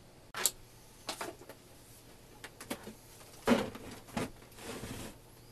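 Scattered clicks and knocks of a VCR being handled and worked on while a broken drive belt is being fixed, with a louder clatter about three and a half seconds in and a brief rustle near the end.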